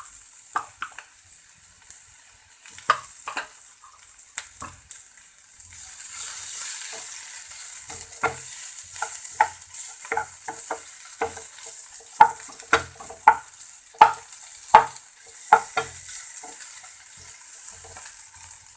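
Chopped onion, capsicum and green chilli sizzling in a little oil in a pan, the sizzle swelling about six seconds in, while mashed boiled potato is stirred in with a spatula that scrapes and clacks against the pan, with several sharp knocks in the second half.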